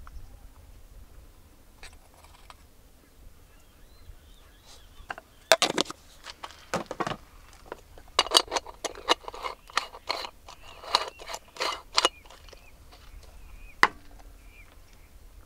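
Metal camp cookware and utensils clinking and clattering as they are handled: a run of sharp knocks and rattles over several seconds, then one more click near the end.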